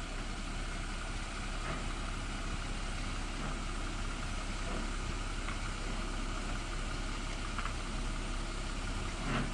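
Jeep engine running steadily at low revs as the Jeep crawls down a rocky ledge drop-off.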